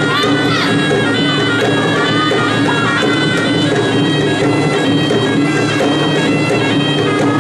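Traditional Malay gendang silat music: a serunai, the Malay double-reed oboe, plays a continuous nasal melody in stepped notes over a steady drone, with drums accompanying.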